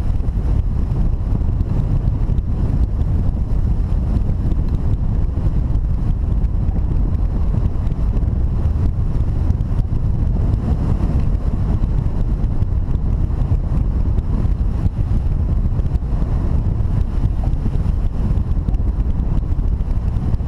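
Wind buffeting the microphone of a camera mounted on a hang glider in flight: a steady low rumble of rushing air.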